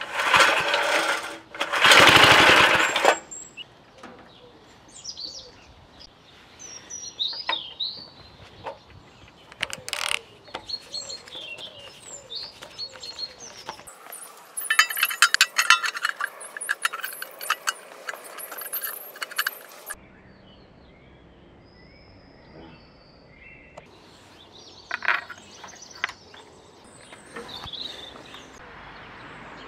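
Small single-cylinder petrol engine of a restored Flymo DM tiller being pull-started, firing with two loud bursts near the start, then running with a rapid, even beat for about six seconds in the middle. Birds chirp in the quieter gaps.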